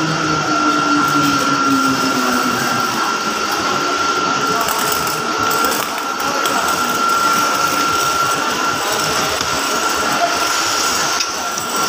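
Mumbai suburban electric local train running into a platform and slowing. Its motors whine on a tone that falls in pitch over the first few seconds as it decelerates, over a constant high hum and dense running noise.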